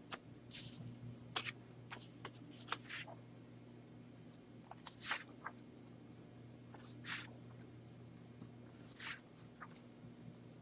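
Faint room tone with a steady low electrical hum, broken by short, soft rustling and scraping noises about ten times at uneven intervals.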